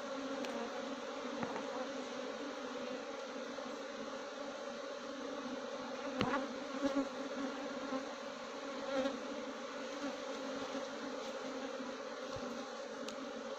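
Honeybees buzzing in a steady swarm hum around their nest, which has been opened for honey, so the colony is disturbed. A few soft knocks and crackles come about six to seven seconds in and again near nine seconds as the comb is handled.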